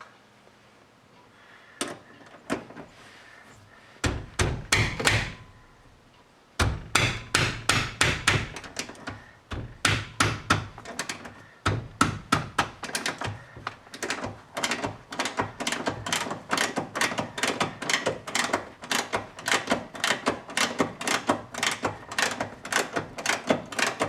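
Ratchet wrench clicking in quick, even strokes, about three or four a second, as the door hinge bolts are backed out. A few separate knocks come first, and the clicking settles into a steady run about six or seven seconds in.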